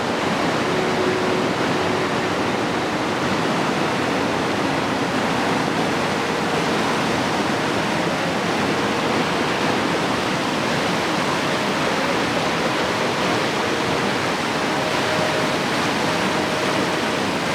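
River water flowing, a steady, even rush of moving water.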